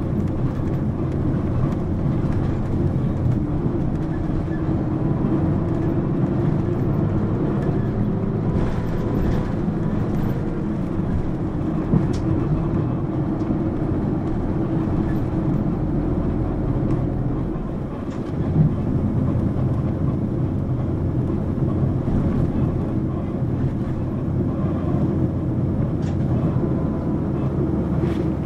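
Sound from a Mitsubishi Fuso PA-MK25FJ (Aero Midi) mid-size route bus on the move: a steady diesel engine drone with road noise. The level dips briefly a little past halfway, then comes a single thump.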